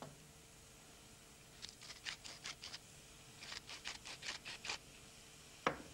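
Wooden pepper mill being twisted over a saucepan: two runs of short grinding rasps, then a single sharp knock near the end.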